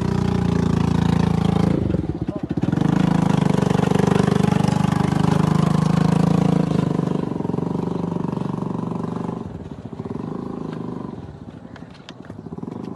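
An engine running close by, steady, with a brief dip about two seconds in and settling to a lower level near the end.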